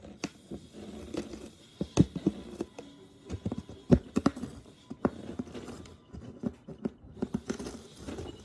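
A cat biting and mouthing the edge of a cardboard box, making irregular sharp crunching taps with soft rustling between them. The loudest taps come about two and four seconds in.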